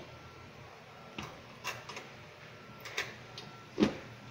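Scattered clicks and knocks from a rice cooker's metal and plastic body being handled and turned over while it is taken apart, with a louder, deeper thump just before the end.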